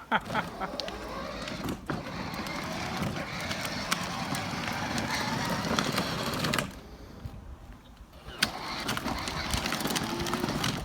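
Children's ride-on electric toy car driving under remote control: its motor and plastic wheels make a steady rough rumble over the ground. Partway through it stops for about two seconds, then moves off again.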